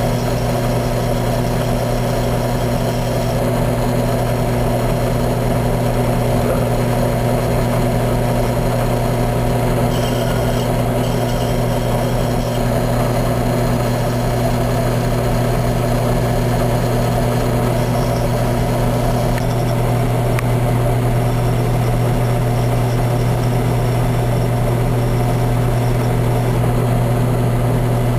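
Drill press motor running steadily with a constant hum, spinning a plastic pinewood derby wheel while a hand tool is held against the wheel to shave it thinner.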